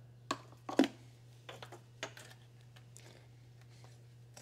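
Light plastic clicks and taps of an engine hose being handled and pushed back onto its fitting. A few quick clicks come in the first two seconds, the loudest about a second in, then only faint ticks.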